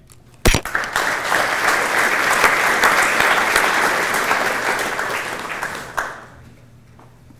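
Audience applauding, a dense clapping that dies away after about six seconds. A single sharp thump comes just before the clapping starts.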